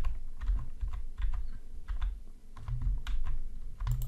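Computer keyboard being typed on: irregular clacking keystrokes, some with a dull thud, as software shortcuts are entered.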